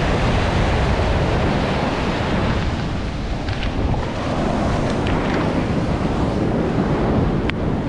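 Heavy surf breaking and washing up the beach, with wind buffeting the microphone.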